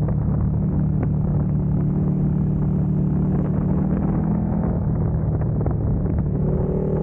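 KTM motorcycle engine running steadily at moderate revs, with rumble from wind and road noise on the camera microphone. Near the end a higher engine note rises briefly.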